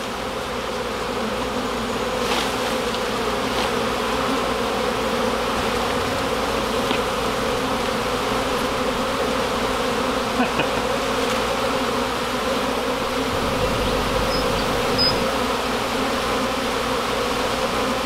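A dense, steady hum of many honey bees buzzing in flight around their opened colony, a colony stirred up by having its comb handled and bees shaken out.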